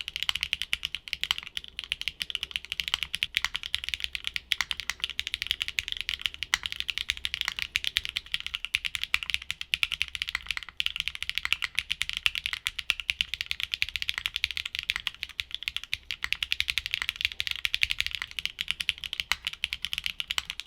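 Continuous fast typing on a mechanical keyboard fitted with HMX linear switches, played as back-to-back sound tests: a dense clatter of sharp clacks, with a brief break about eleven seconds in.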